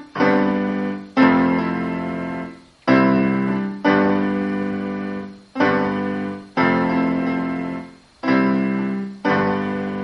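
Piano playing a slow run of full chords, struck in pairs about a second apart, each chord left to ring and fade.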